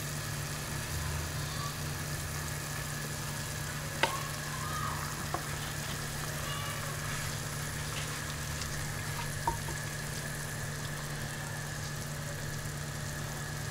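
Steady hum and hiss of a pan of thin tamarind gravy heating on a gas burner, with a few light knocks of a wooden spatula against the pan as it is stirred.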